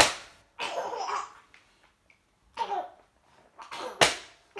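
A sharp snap of magazine pages being flicked, then a baby laughing in bursts. A second, equally sharp page snap comes about four seconds in.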